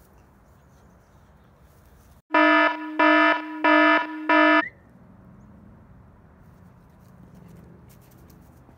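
Four loud electronic buzzer beeps in quick succession, each about half a second long, with all other sound cut out while they play, as with an edited-in sound effect. Before and after there is only faint outdoor background.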